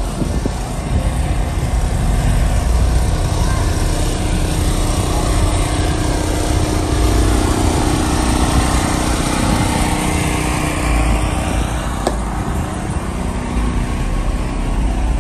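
Engines running steadily, a continuous mechanical hum with a deep low rumble, with a faint rising whistle about eleven seconds in.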